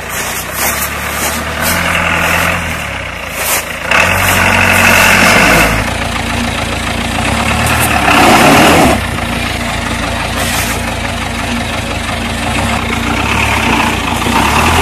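ARO 24-series 4x4's engine labouring through deep mud and snow, revving up and easing off in turns, with louder surges about four and eight seconds in.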